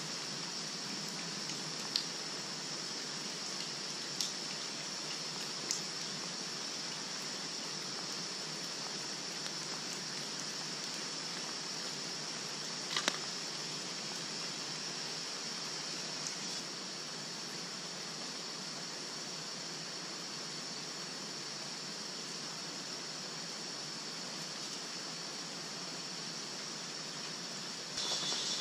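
Small teepee fire of dry sticks burning, with a few sharp crackles over a steady hiss.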